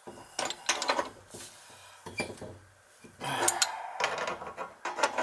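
A wrench and pliers clinking and scraping on the brass compression nuts of a 1-inch compression ball valve on copper pipe as the nuts are tightened. The sound comes in several short runs of metal clicks with pauses between.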